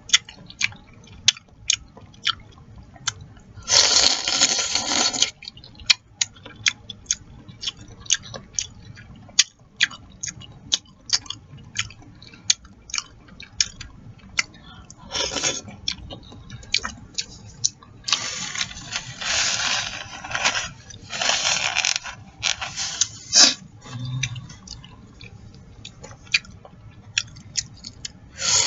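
Close-miked eating of chicken noodle soup: a steady run of wet chewing and lip-smacking clicks, broken by several slurps of one to two seconds.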